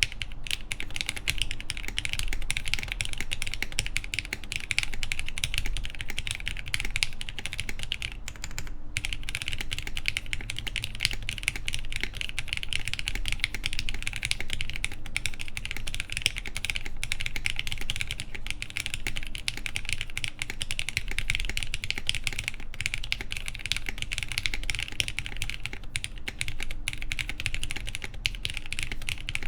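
Continuous typing on an Elvenmonster Martingale mechanical keyboard: a dense, steady run of keystrokes on lubed Cherry MX Black linear switches, mounted plateless on the PCB, under Hammer CRP R3 keycaps. There is a brief pause about nine seconds in.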